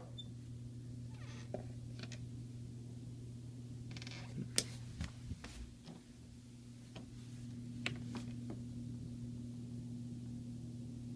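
Steady low hum of a central air-conditioning system's blower running in fan-only mode, with a few light clicks and a brief rustle of handling.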